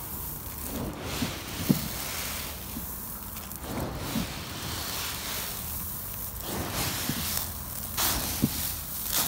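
Loose dry mixed poultry corn being stirred in a container, a rushing, rustling hiss of grain that swells and fades in repeated surges, with a few soft knocks.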